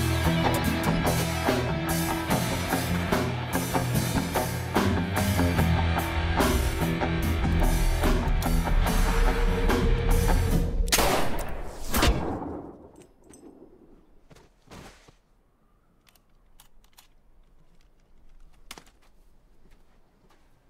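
Loud rock soundtrack music with heavy drums, ending about twelve seconds in on two sharp, loud hits. Then near silence with a few faint clicks.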